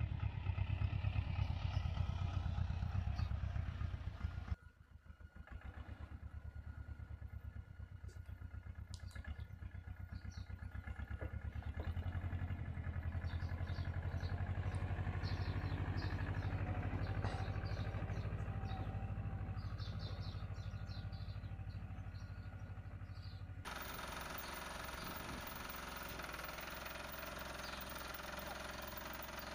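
Engine of a vintage small tractor running with a low, even beat, briefly dropping away about five seconds in. Near the end it gives way to the steadier engine of a TZ-4K-14 mini tractor.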